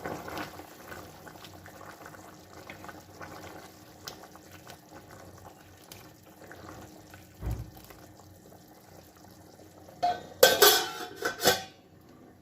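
Chickpea gravy simmering in a covered cooking pot with a faint steady bubbling hiss, then about ten seconds in a short burst of metal clattering as the pot lid and spoon knock against the pot.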